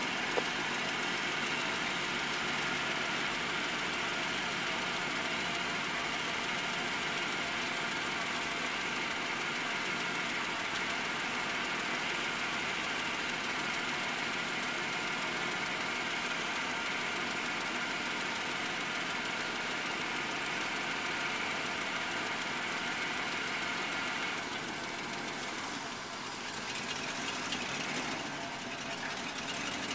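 A 1998 GMC 3500 tow truck's 7.4-litre V8 runs steadily while the wrecker's hydraulic boom is worked. The sound drops a little and changes about three-quarters of the way through.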